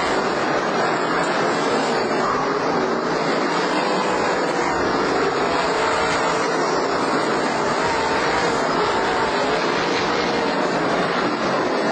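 Winged sprint cars' V8 engines running at race speed on a dirt oval, loud and steady, the engine pitch rising and falling over and over as the cars go through the turns.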